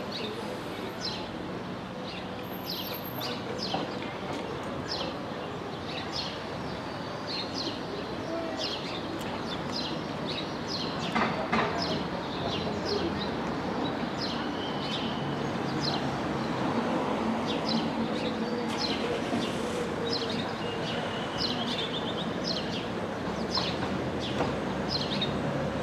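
Small birds chirping in short, repeated calls, over a steady low background rumble like distant town traffic.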